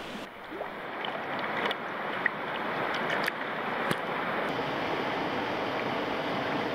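Steady rushing of water through a river rapid, with a few short sharp ticks in the middle.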